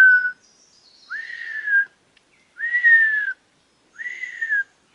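A man whistling an imitation of the diademed sifaka's communication call. There are three short whistles plus the tail of one more, each rising quickly and then sliding gently down in pitch, spaced about a second and a half apart.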